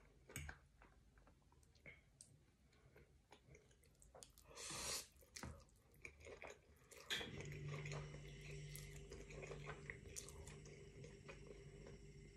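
Close-up mouth sounds of a person eating spaghetti: slurping the strands off a fork and chewing, with small clicks of the fork against the plate and a longer slurp about four and a half seconds in. About seven seconds in a steady low hum starts and keeps going under the eating.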